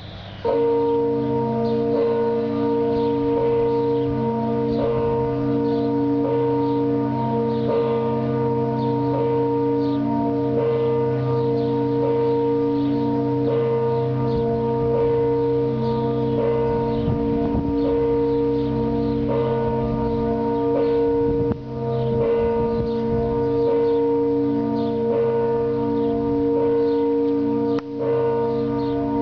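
Church bells ringing the noon bell peal, broadcast by radio and heard through the loudspeaker of a 1956 Telefongyár T328 valve radio tuned to medium-wave AM. Strokes come about once a second over a steady hum of ringing tones.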